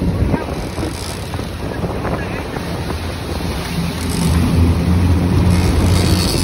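Boat engine running with a steady low drone, over the rush of the churning wake and wind buffeting the microphone; the engine grows louder about four seconds in.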